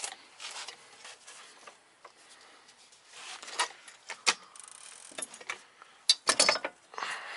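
Scattered metallic clicks, clanks and scrapes of a floor jack being worked and a coilover strut being guided into the steering knuckle, with a cluster of sharp clicks late on.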